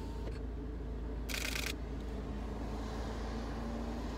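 DSLR camera shutter firing a quick burst of frames, lasting under half a second, about a second and a half in, over the low steady hum of a car cabin.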